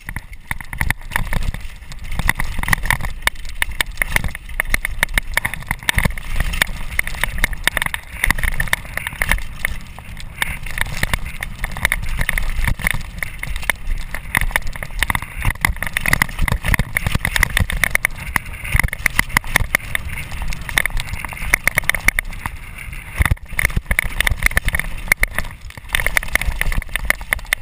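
Downhill mountain bike ridden fast over rough dirt and rock: a continuous dense rattle and clatter of the bike over the bumps, with tyre noise and wind buffeting a chest-mounted camera.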